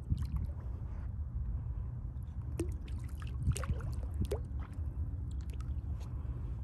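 Hooked sheepshead splashing and thrashing at the water's surface on the line, in short scattered splashes over a steady low rumble.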